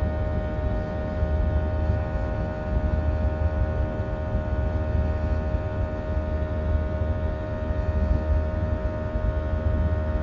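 Steady cabin drone of a Boeing 737-700's jet engines during the climb: a deep rumble with several steady tones over it.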